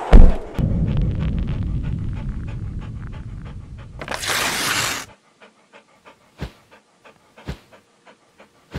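Intro sound effects: a sharp hit, then a dog panting in quick, even breaths over a low rumble. About four seconds in a short whoosh sounds, after which the panting stops and faint, evenly spaced ticks continue, with a few louder clicks.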